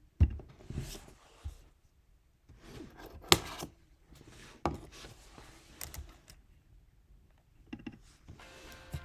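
A few sharp clicks and knocks, with quieter handling noise between, from a computer being worked by hand. Music starts faintly near the end.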